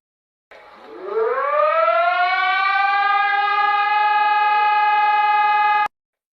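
Emergency alert siren winding up from a low pitch, rising quickly, then settling into a steady high wail before cutting off abruptly near the end.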